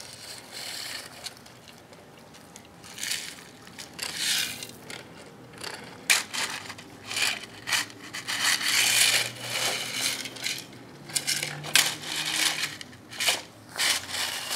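Small gravel crunching and scraping as a toy excavator's bucket is pushed and dragged through it, in irregular bursts that come closer together in the second half.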